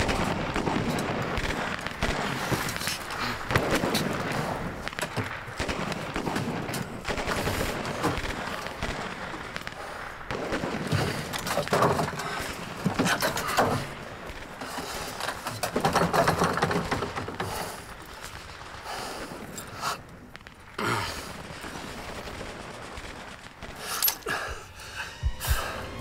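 Sustained gunfire, with shots coming in rapid bursts.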